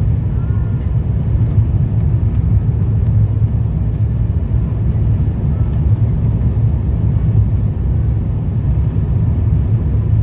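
Steady low rumble of cabin noise inside an Airbus A350-900 on approach with flaps extended, from its Rolls-Royce Trent XWB engines and the airflow over the wing.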